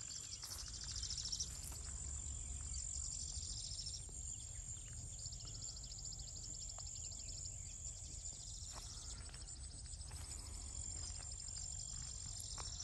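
Insects chirping in fast pulsed trills over a steady high-pitched insect drone, with a low rumble underneath.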